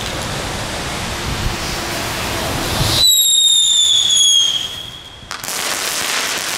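Small category 1 ground firework burning on paving, hissing as it sprays sparks. About three seconds in it switches abruptly to a shrill whistle that slides slowly down in pitch for about a second and a half, then goes back to hissing, which dips briefly near the end before picking up again.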